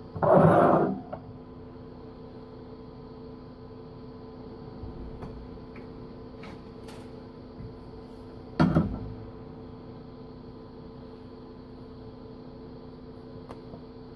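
Steady electrical hum of a TIG welding setup at rest, with two short, loud knocks of metal being handled: one at the start and one about eight and a half seconds in, plus a few faint clicks between them.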